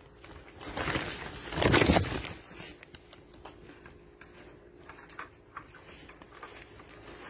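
Rustling and crunching in straw bedding, loudest in one burst about one and a half seconds in, then faint scattered clicks and rustles.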